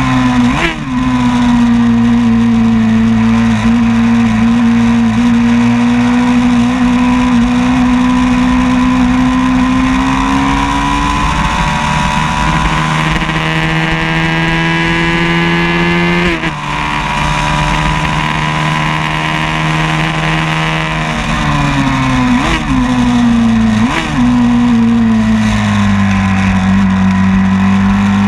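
A vintage 500 cc class racing motorcycle's engine, heard close up from an onboard camera on the bike. It runs hard at a steady pitch, rises as the bike accelerates, and drops suddenly at a gear change about halfway through. Near the end it falls away as the bike slows for a corner, with two quick throttle blips on the downshifts.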